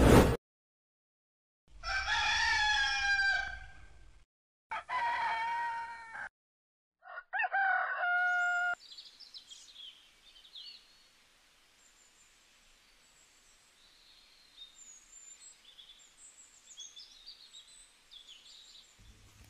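A brief swoosh right at the start, then a rooster crowing three times, each crow cut off sharply. After that come faint, scattered birds chirping.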